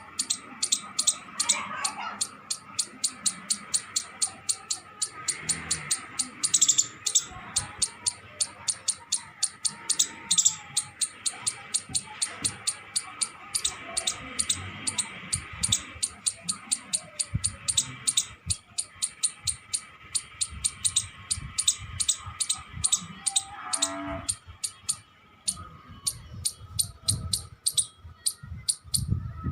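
Indian palm squirrel (gilhari) giving its repeated sharp chirping call, about three high chirps a second, kept up without a break.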